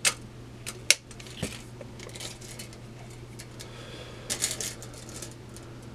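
Handling noise from a tape measure being moved along a plastic toy spaceship: a few sharp clicks and taps in the first second and a half, then faint rustling and light tapping, a little louder past four seconds.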